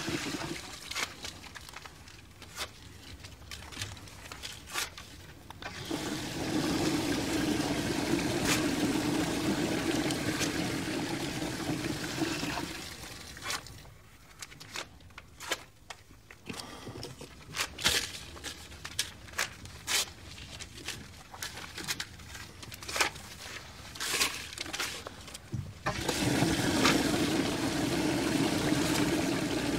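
A toilet flushing repeatedly: a steady rush of water that starts about six seconds in and runs for about six seconds, and starts again near the end. In the quieter stretches between the flushes come many sharp clicks and crackles of paper banknotes being handled in the bowl.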